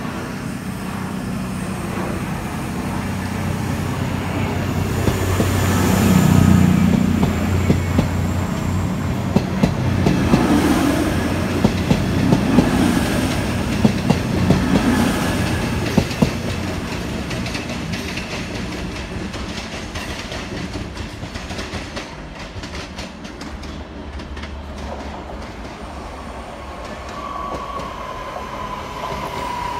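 CrossCountry Voyager diesel multiple unit running past. The underfloor engine drone is loudest about six seconds in, then the wheels clack over rail joints as the coaches go by and the sound fades. Near the end a thin high squeal comes from a Northern Class 323 electric unit on the next line.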